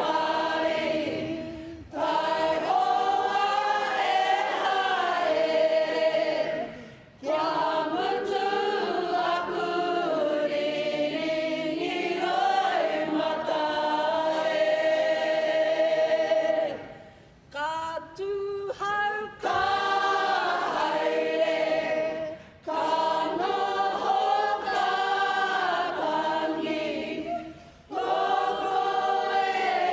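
Kapa haka group singing together in unison, in long phrases with brief breaks between them.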